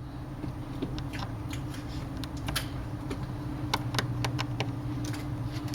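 Scattered light clicks and taps of small tools and fingers on a tablet's internal parts and flex-cable connectors, over a steady low hum.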